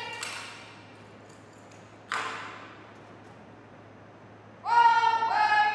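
Drill commands shouted in a long, drawn-out chant that slides up and then holds, ringing in the gym's echo. Between the commands, two sharp slaps a couple of seconds apart as the color guard carries out its movements.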